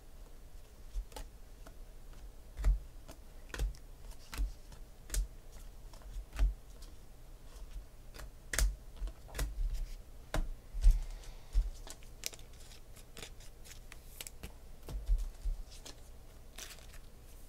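2016 Panini Phoenix football trading cards being flicked through by hand and tapped down onto stacks on a table: irregular sharp clicks and taps, several a second at times, some with a low thump from the tabletop, the loudest a little past the middle.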